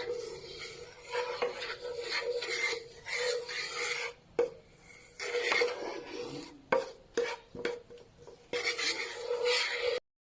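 Irregular rasping, scraping strokes from kitchen work on food or cookware, with a few sharp clicks in between.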